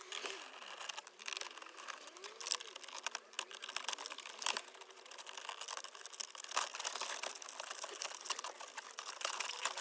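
Irregular quick clicks and crackles of hard plastic parts and a tool being handled while a Volkswagen Passat B5's glovebox is being removed.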